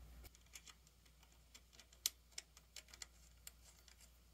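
Faint, irregular small metallic clicks and ticks of a nut being threaded by hand onto a bolt, with one sharper click about two seconds in.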